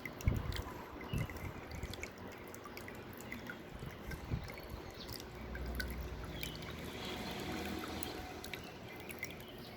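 Small homemade water-feature fountain running: water trickling and dripping steadily, with many small scattered drips. A few low bumps sound in the first second or so.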